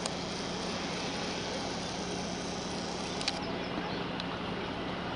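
A steady low machinery hum with one constant tone, under an even rushing noise, with a couple of faint clicks about three seconds in.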